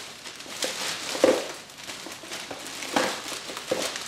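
Computer-part packaging being handled: boxes and wrapping rustle and crinkle, with a few sharp knocks as the boxes are moved about.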